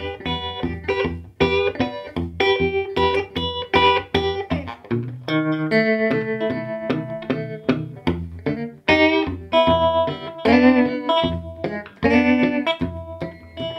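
Electric guitar played clean through an early-1960s Davoli D531T valve amplifier with its tremolo on the fast setting, the notes and chords pulsing quickly and evenly in volume. The tremolo works again after all the capacitors in its circuit were replaced.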